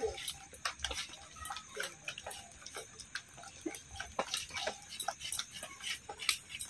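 Irregular light clicks and taps of hand food preparation: vegetables being cut with a knife and batter worked by hand in a steel bowl.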